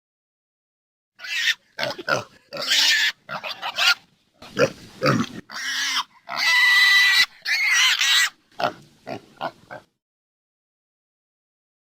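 Pig squealing: a rapid string of harsh squeals starting about a second in, the longest and highest about six seconds in, stopping shortly before ten seconds.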